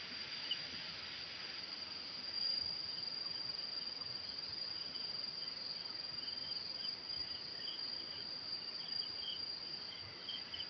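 Insects trilling in one steady, high, unbroken tone, with a second fainter insect chirping in short repeated pulses.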